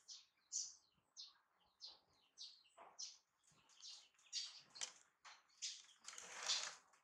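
Baby macaque giving a run of short, high-pitched squeaks and chirps, several a second apart, with a longer whimpering cry about six seconds in.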